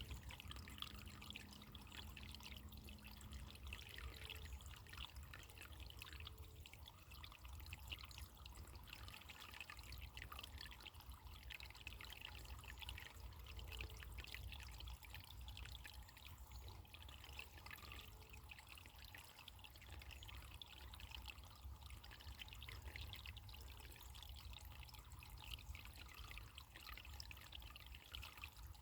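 Faint, steady trickling of running water, as of a small stream, with a low rumble underneath.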